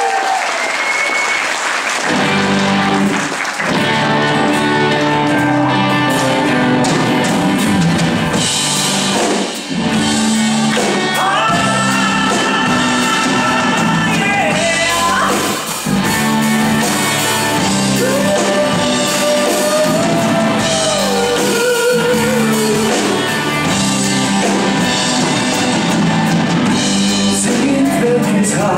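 Applause fades, and about two seconds in a live rock band starts up: drums, bass, guitars and keyboards play a steady beat, with long sustained melody lines over the top.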